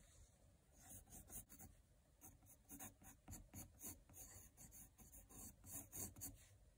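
Col-Erase colored pencil scratching faintly across mixed-media drawing paper in quick, short, irregular strokes as loose hair waves are sketched.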